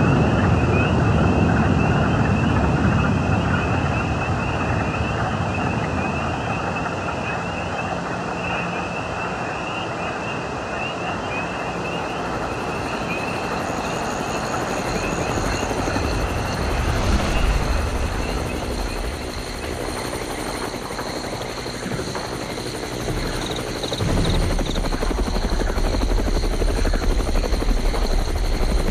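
Helicopter running, with a high steady turbine whine and low rotor chop that come in around the middle and grow louder about four-fifths of the way in. Before that there is a steady rushing noise with a warbling high tone.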